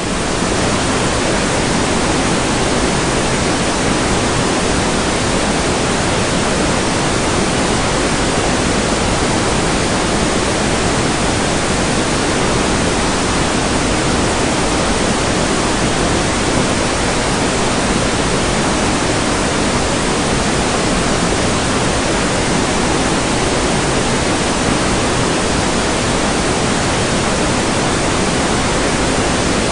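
Steady, even hiss of a heavy rain downpour, with no separate drops or changes in level.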